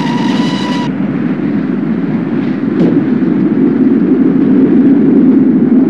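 An LMS steam-hauled express mail train rushing past at speed with a loud, steady rumble of wheels and coaches. A steady locomotive whistle cuts off about a second in. A brief knock comes about three seconds in, as the mail pouches are snatched off the lineside standard into the train.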